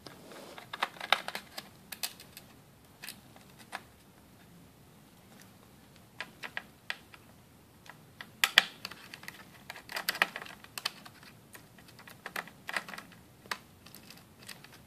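Small Phillips screwdriver working the screws out of a laptop's top case: scattered light clicks and scrapes of the metal tip on the screw heads and the metal shield, some in quick little clusters.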